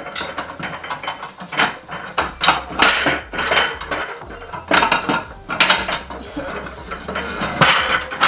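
Dishes and kitchenware clattering as they are handled: an irregular run of sharp clinks and knocks of plates and utensils.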